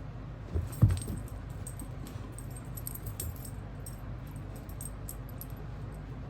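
A dull thump about a second in, then light metallic jingling and clinking on and off, like a dog's collar tags as it moves about.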